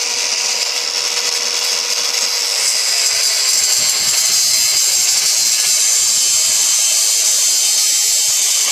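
Power cutting tool running steadily while cutting into steel handcuffs, a loud high-pitched whine and hiss that grows a little louder about three seconds in as it bites into the metal.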